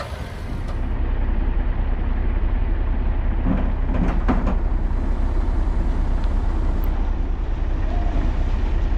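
Steady low rumble of a heavy vehicle's engine running, growing louder about a second in, with a few short knocks about four seconds in.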